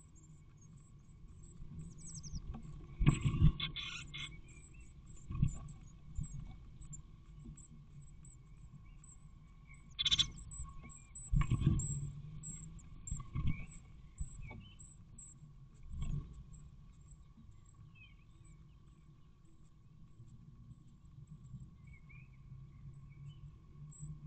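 Eurasian blue tit nestlings begging with rapid, very high cheeps inside a wooden nest box as the parents feed them. Several dull thumps and scrabbles, the loudest sounds, come as the adults land and shift about on the nest.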